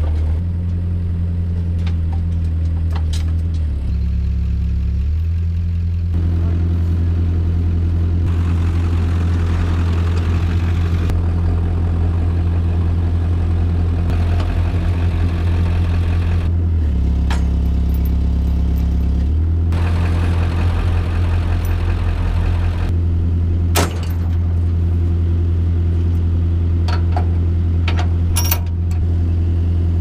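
Mini excavator's diesel engine running steadily, its pitch dipping briefly twice as the machine is worked.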